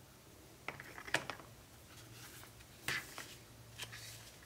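Handling during a phone unboxing: a few light clicks and taps with faint rustling. They come in a short cluster about a second in, then once near three seconds and once near four seconds.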